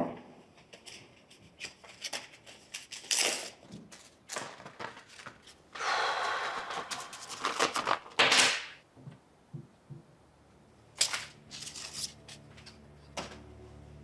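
A cup set down on a counter with a knock, then a padded paper mailer envelope handled and torn open, with a long rip about six seconds in and paper rustling and crinkling around it. Soft low music comes in near the end.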